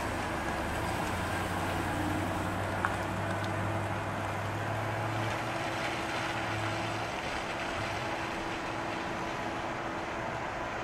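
2002 Chevrolet Silverado 2500 HD utility truck's engine running as the truck pulls away and drives off down the street, its low hum fading after about five seconds.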